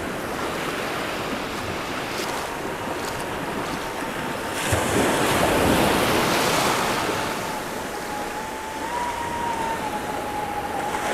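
Small surf breaking and washing up on a sandy beach, with a larger wave crashing about five seconds in. Beneath it runs a faint steady whine from a remote-controlled bait boat's electric motor as it heads out through the waves.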